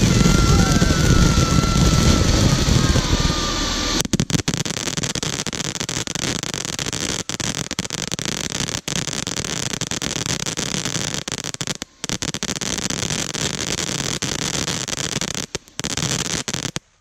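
Winda 'Lighthouse' firework fountain burning, a loud continuous hiss of spraying sparks. It eases slightly about four seconds in and cuts off abruptly near the end.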